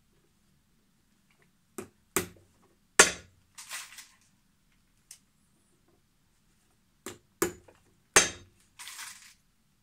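Cobbler's hammer driving hobnails into the leather sole of a boot: two sets of three blows, the last of each set the loudest, each set followed by a short rustling scrape.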